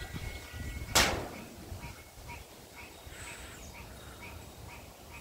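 Wind buffeting the microphone with a low rumble, a single sharp knock about a second in, then a bird chirping in short calls about twice a second.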